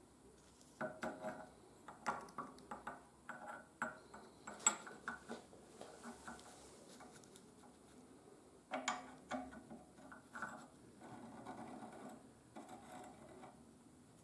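Light metallic clicks and clinks as a steel bevel gear and its shaft are fitted into the cast-iron frame of an enclosed two-speed breast drill, coming in two bursts. Softer rubbing of metal on metal follows near the end.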